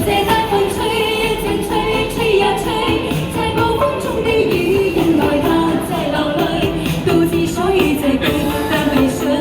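A pop song playing: a woman singing a melody over accompaniment music.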